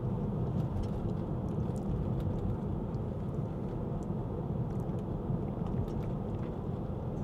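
Steady tyre and road noise heard inside the cabin of a Tesla Model 3 electric car driving along at speed, with no engine sound.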